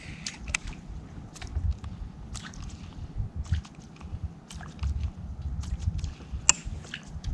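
Water sloshing and dripping around a kayak, with scattered small clicks and ticks over an uneven low rumble; one sharper click stands out near the end.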